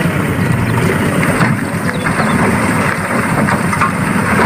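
A vehicle engine idling steadily with a low rumble.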